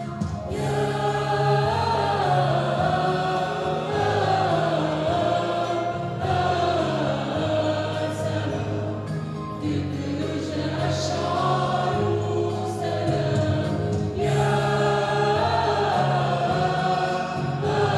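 Mixed choir of men and women singing together in harmony, over held low accompanying notes.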